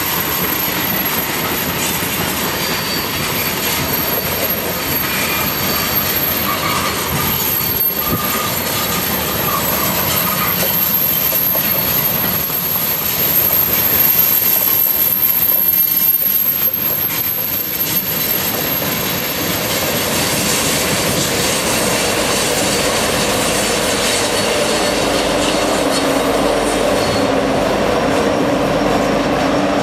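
Freight train's tank cars and covered hoppers rolling past with steady wheel rumble and intermittent flange squeal. Near the end, the diesel engines of trailing Union Pacific locomotives grow louder.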